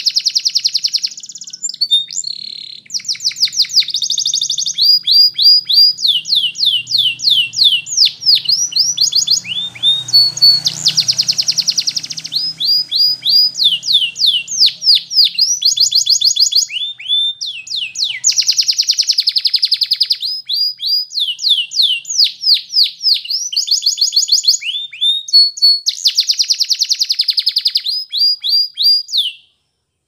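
Domestic canary singing a long, loud song of rapid trills and runs of repeated downward-sweeping whistled notes, changing from phrase to phrase with only brief breaks. The song stops just before the end.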